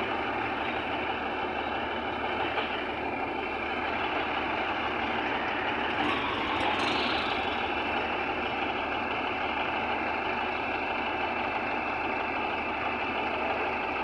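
Heavy diesel machinery running steadily, the engine noise of a bulldozer or the lowbed truck during loading.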